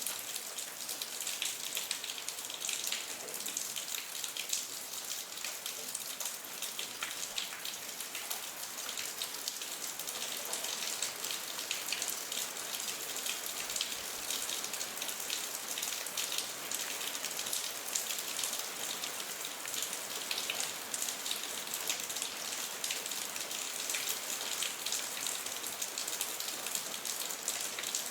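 Steady rain falling: a bright, even hiss with many separate drops ticking.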